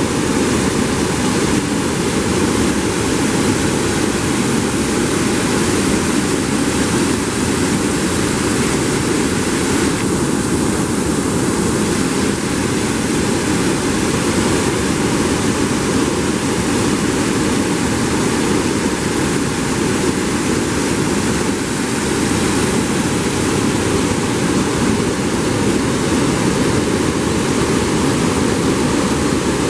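River water pouring over a concrete sluice weir and churning into white foam below: a loud, steady rush.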